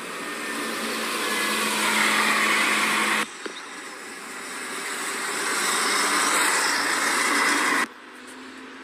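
City buses driving past close by: engine and tyre noise swells as one bus nears and cuts off suddenly about three seconds in, then swells again as a second bus approaches and cuts off suddenly near the end.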